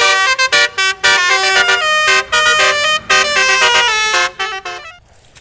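Telolet bus horn tune: a quick melody of horn notes changing pitch every fraction of a second, several notes sounding together, dying away shortly before the end.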